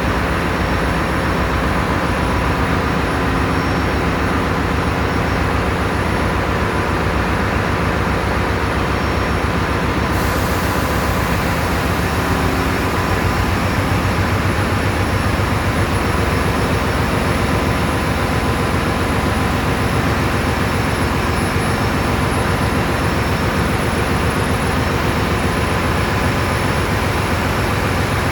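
Cargo ship's diesel engine running steadily and loudly, a dense low rumble with steady tones over it. About ten seconds in, a higher hiss grows stronger.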